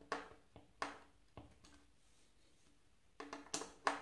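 Sharp knocks as a small screw is tapped into a plywood board, each with a brief ring. There are about four in the first second and a half, a pause, then a quick run of five near the end.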